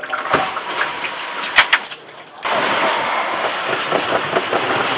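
Spray water from a hose running down through a pickup roller lid's drain channels and draining out, with a sharp knock about a second and a half in. About halfway through, a steady rushing noise starts suddenly.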